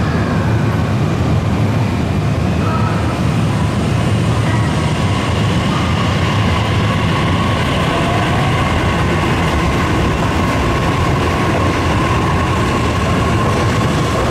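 E655-series 'Nagomi' electric train pulling out of a station platform and picking up speed: a steady low rumble of the moving cars, with a steady electric whine coming in about a third of the way through and a brief rising glide in the middle.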